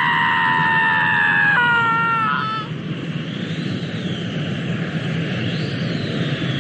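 A boy's long held scream from an anime soundtrack, breaking off about two and a half seconds in, over a low steady rumble that carries on alone afterward.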